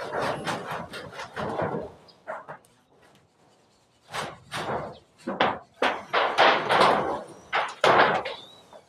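Irregular knocks and bangs of carpentry work on wood, with a lull between about two and four seconds in before the strokes come thick again.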